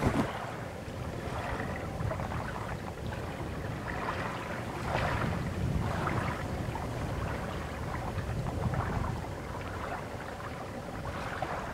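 Wind rumbling on the microphone over choppy water, with lapping and small splashy sounds coming and going.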